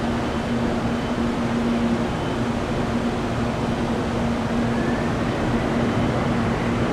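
Steady rush of airliner jet engines, even in level, with a constant low hum that drops out briefly a few times.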